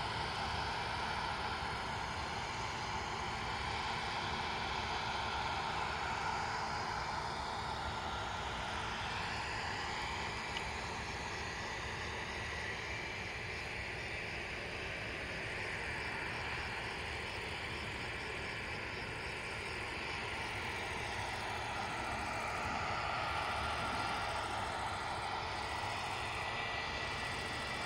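New Holland CX740 combine harvesters running in the field, a steady drone of engines and threshing machinery, a little louder near the end.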